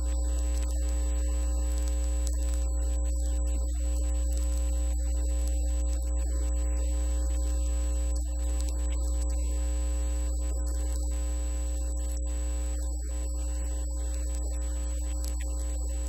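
Steady low electrical hum, like mains hum, with a few fainter steady higher tones and an unchanging level.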